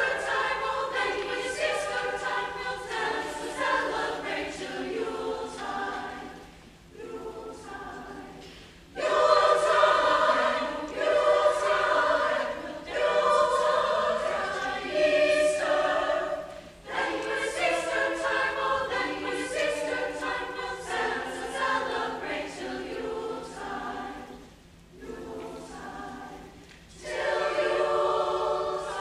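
Large mixed choir singing a Swedish dance carol in phrases. Softer passages swell back to full voice about nine seconds in and again near the end.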